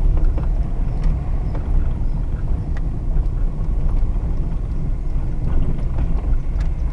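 Car driving slowly, heard from inside the cabin: a steady low rumble of engine and tyres on the street, with a few light rattles.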